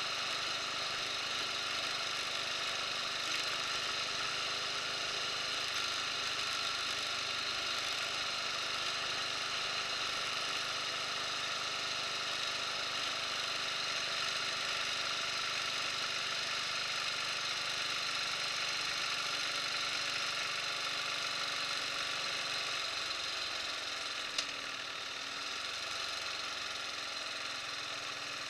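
Buell motorcycle engine running steadily while riding, with a single sharp click about 24 seconds in.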